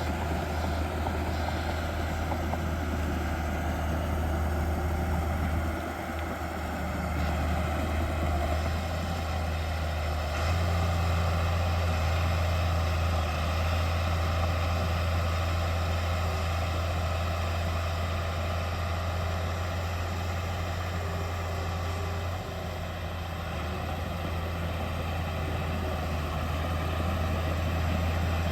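Heavy diesel engine of earthmoving machinery, a dump truck or the bulldozer, running steadily with a low drone. Its note dips and picks up again a few times.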